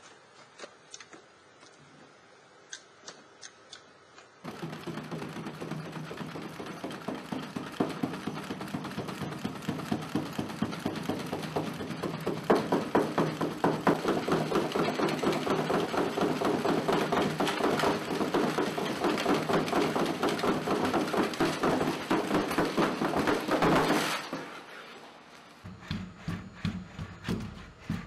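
Boston Dynamics Cheetah robot galloping on a treadmill: a steady mechanical hum with a rapid patter of foot strikes over it, growing louder over several seconds and cutting off suddenly near the end. It is preceded by a few seconds of faint ticking and followed by the light rhythmic tapping of a legged robot's steps.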